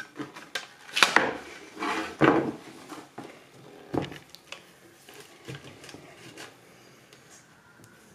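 Clunks and clatter of a router and its clear base being worked loose and lifted off a circle-cutting jig, with sharp knocks about a second in, around two seconds in and at four seconds, then lighter clicks of handling.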